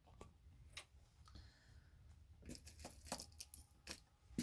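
Quiet handling of fabric and metal straight pins: small light clicks and clinks, several close together about two and a half to four seconds in, and a sharper click right at the end.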